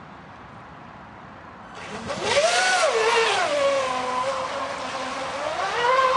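Radio-controlled catamaran speedboat's motor at high speed, starting about two seconds in: its pitch rises, drops back and holds steady, then rises again near the end.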